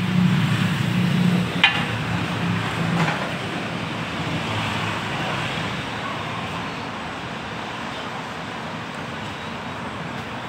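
Road traffic noise: a vehicle engine hum for the first few seconds fades into a steady traffic rush. A sharp click comes a little under two seconds in.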